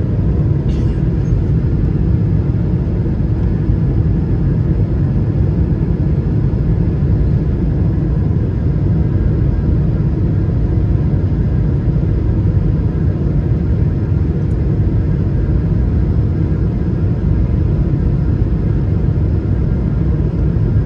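Steady low rumble of a jet airliner's engines and rushing air, heard from inside the passenger cabin as the plane climbs after takeoff.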